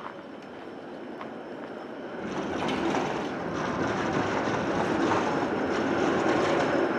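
City tram passing close by on a snowy street. Its steady rumble and wheel noise swell about two seconds in and stay loud.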